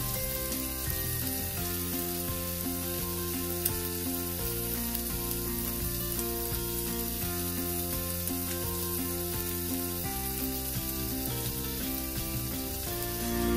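Sliced onion and garlic sizzling steadily in hot olive oil in a frying pan, with background music playing under it.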